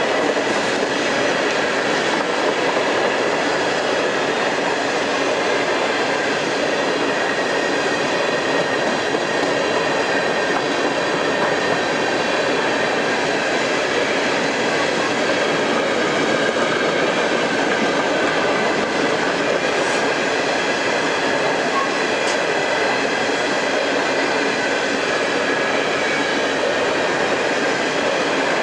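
Covered hopper cars of a long freight train rolling past: a steady noise of steel wheels on rail.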